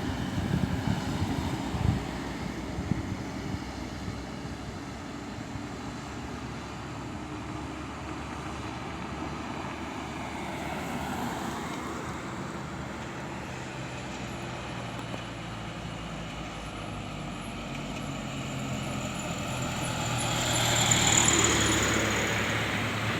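Road traffic passing: a steady rumble and hiss of engines and tyres, swelling near the end as a large vehicle passes close, with a thin high squeal at its loudest.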